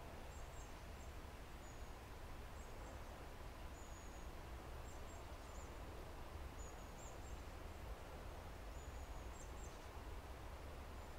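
Faint, steady woodland ambience: an even hiss over a low rumble, dotted with very faint, short high-pitched chirps every second or so.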